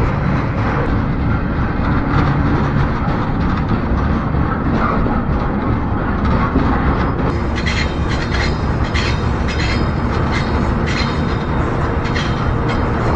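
Freight train running, heard from aboard the train: a steady rumble, with a run of sharp clicks from about halfway through.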